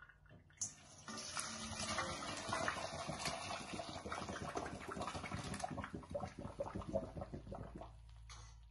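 Boiled potatoes, fennel and carrots and their hot cooking water poured from a pot into a metal colander in a sink: after a brief clink, water gushes and splashes for several seconds, then thins to trickling and dripping as it drains.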